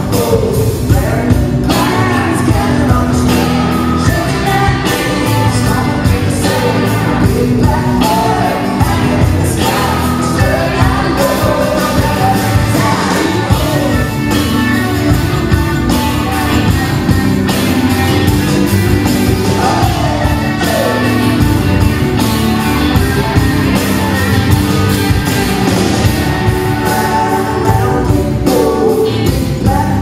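Live rock band playing loudly and steadily: electric and acoustic guitars, electric keyboard and drums, with a voice singing over them, heard through the hall's sound system.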